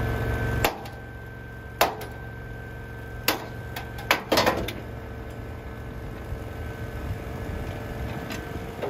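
Engine-driven welding machine running steadily, with a handful of sharp knocks, several close together about four seconds in.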